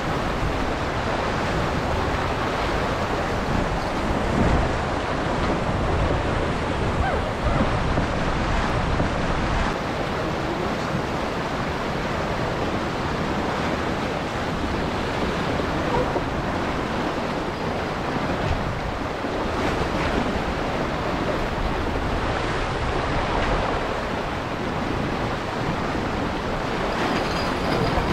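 Steady rush of wind buffeting the microphone mixed with water streaming and splashing along the hull of a sailboat sailing fast downwind.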